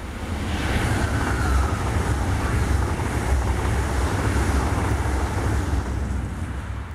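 ICE 3 high-speed electric train passing at speed, a loud rush of air and wheel noise with a deep rumble. A whine falls in pitch as the front goes by, and the noise fades near the end once the train has passed.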